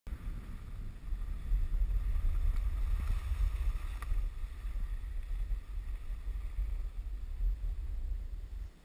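Wind buffeting an action camera's microphone while it moves down a ski run, an uneven rumble with a faint hiss of sliding over snow. The rumble dies down near the end.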